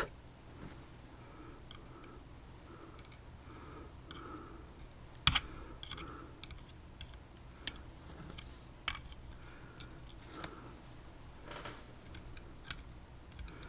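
Sparse light metallic clicks and taps of tweezers handling small lock pins, with the sharpest click a little past five seconds in.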